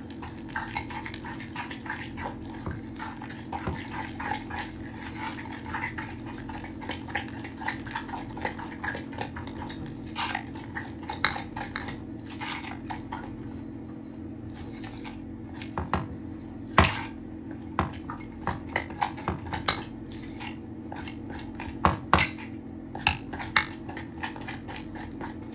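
Metal spoon beating stiff coffee buttercream in a glass mixing bowl: quick, continual scraping and clicking of the spoon against the glass, with sharper knocks in the second half. A steady low hum runs underneath.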